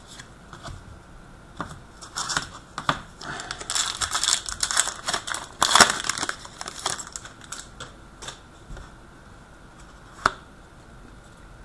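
Trading-card pack's wrapper crinkling and tearing open, and the cards being handled, in irregular scratchy rustles and sharp clicks. It is busiest from about two to seven seconds in, then thins to a few single clicks.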